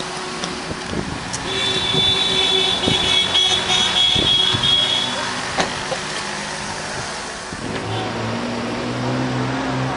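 Road traffic noise with a vehicle horn held steadily for about three and a half seconds, starting a second and a half in. A lower engine drone comes in near the end.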